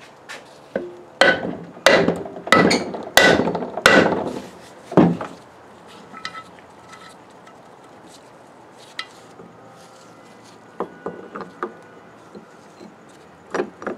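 A hammer striking steel parts of a Model T flywheel assembly, about half a dozen sharp blows with a short ring in the first five seconds. Near the end come a few lighter clinks of metal parts being handled.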